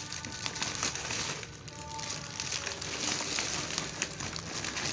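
Plastic packaging crinkling and rustling as a food parcel is handled and unwrapped, with scattered small clicks.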